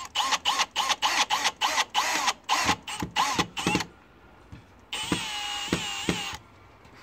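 Milwaukee Fuel cordless drill with a screwdriver bit driving screws into wall anchors in brick. The trigger is pulsed about a dozen times in the first four seconds, each pulse a brief motor whine, and then the drill runs steadily for about a second and a half near the end.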